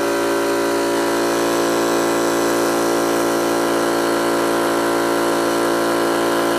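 Yong Heng high-pressure air compressor running steadily under load, a continuous hum made of many even tones. It is building line pressure past 2,000 PSI on the way to 2,500, with the tank not yet opened.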